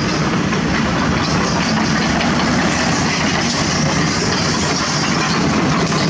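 Small dump truck's engine running steadily and loud close by as the truck moves slowly forward over loose dirt.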